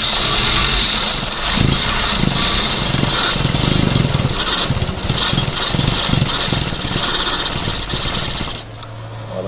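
Chevrolet car engine, fitted with a new timing-chain kit, running with an uneven, surging note. It then drops to a quieter, steadier idle shortly before the end, as the engine is switched over from petrol to LPG.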